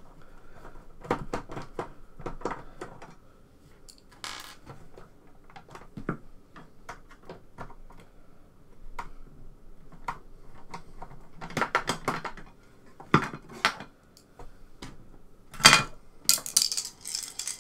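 Screwdriver working screws out of the plastic expansion cover on the back of an Amstrad PCW 9256, with irregular small clicks and scrapes. Near the end come louder clatters as the cover comes free and is set down on the desk.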